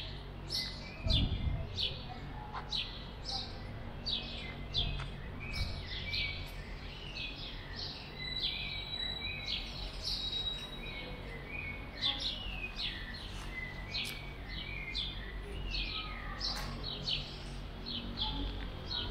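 Small birds chirping over and over in short, quick notes, with a held whistle for a couple of seconds near the middle, over a low steady background rumble.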